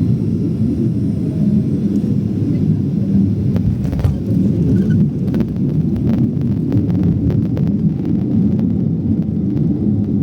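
Steady low roar of a Boeing 737-800's engines and rushing air, heard from inside the passenger cabin. A scatter of light clicks and rattles comes in from about three and a half seconds in and fades out around eight seconds in.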